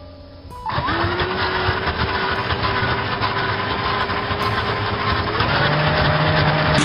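Powered ice auger (drill-driven) running steadily under load, starting up about a second in. Its pitch steps up about five seconds in.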